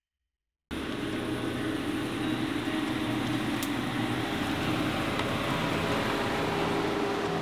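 A steady mechanical hum and rumble that cuts in abruptly under a second in, after silence.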